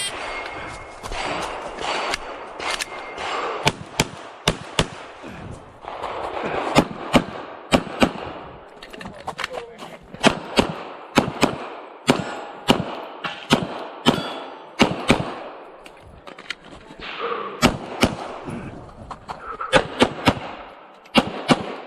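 Rapid 9mm pistol shots from a Glock 34 during a timed USPSA stage, mostly in quick pairs with short pauses between strings as the shooter moves and reloads.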